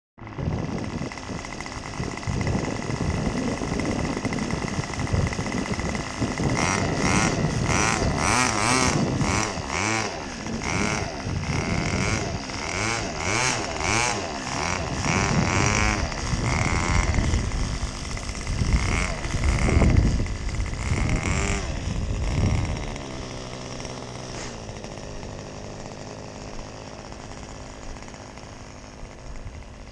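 Evolution 60 two-stroke glow engine on an RC model plane running loudly, its pitch rising and falling over and over for many seconds. About 22 seconds in, it drops to a quieter, steadier drone that sinks slightly in pitch and fades as the plane moves away down the runway.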